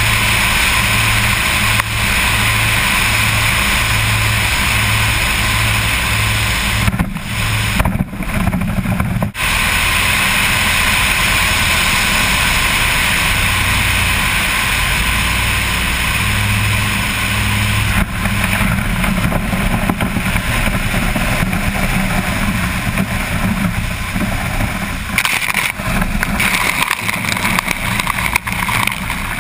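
Twin engines of an Aircam amphibian running steadily at power with a slow regular throb, mixed with wind rush, heard from a camera on the float. Near the end the float meets the water and spray hits.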